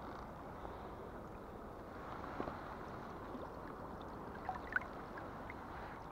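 Steady rush of flowing river water, with a few faint clicks about two and a half seconds in and again near the five-second mark.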